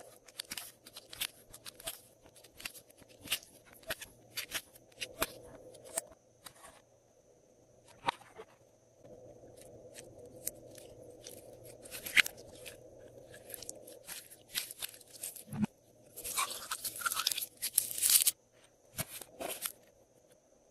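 Glossy slime being mixed and squished by hand with add-ins, making a stream of sharp clicks and crackles, with a dense burst of crackling for about two seconds near the end.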